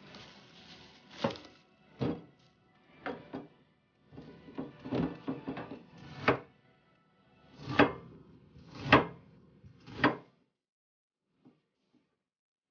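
Kitchenware being handled and knocked against a stainless steel kitchen sink: a series of separate clatters and knocks, roughly one a second, that stop about ten seconds in.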